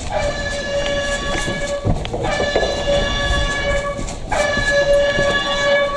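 A loud, steady horn-like tone sounds three times, each blast about two seconds long with a slight dip in pitch at its start, and faint clicks run through the gaps.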